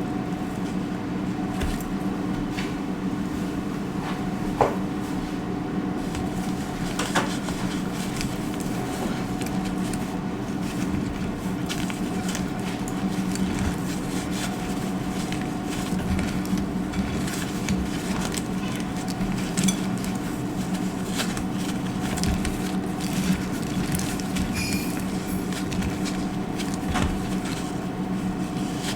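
Dry soap crackling with scattered small clicks and a few sharper snaps as it is cut and crunched, over a steady low hum.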